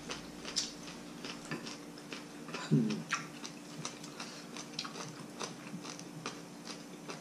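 Metal spoons and forks clicking and scraping against ceramic bowls and plates while people eat, with some chewing. There is one short vocal sound about three seconds in.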